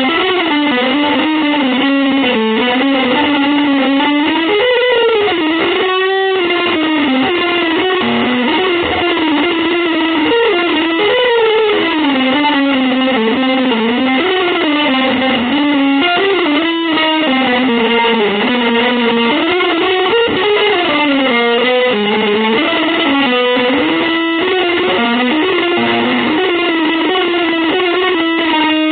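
Electric guitar playing continuously, a wandering melodic line over dense sustained notes, with an effects-processed tone.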